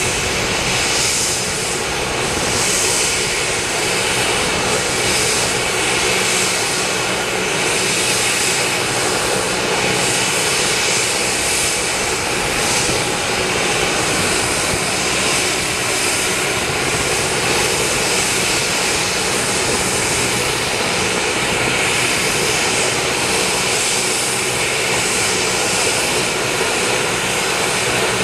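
AgustaWestland AW139 helicopter's twin turboshaft engines and main rotor running steadily on the ground with the rotors turning, as for a hot load.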